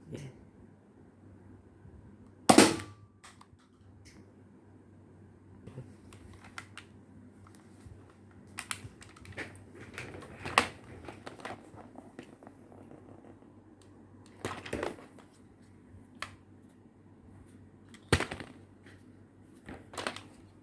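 Spring-powered Nerf dart blasters being primed and fired, heard as sharp plastic clacks and pops with quieter handling clicks between. The loudest snap comes about two and a half seconds in, and several more follow spread out over the rest.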